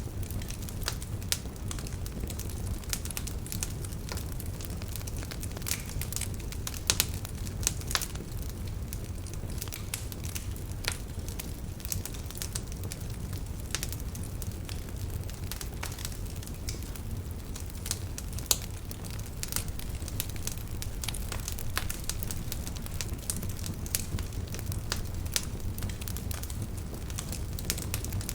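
Wood fire in a fireplace crackling: frequent irregular sharp snaps and pops over a steady low rumble of the flames, with a few louder pops.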